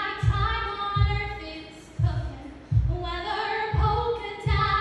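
A woman singing long, held notes over a backing track with a steady low beat.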